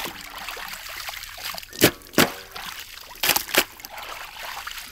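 Chicken pieces being rinsed by hand in a vessel of water: water trickling and sloshing, with two pairs of sharp splashes.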